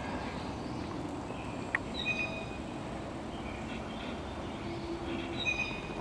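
Steady low outdoor rumble with a few short, high bird calls about two seconds in and again near the end, and a single faint click in between.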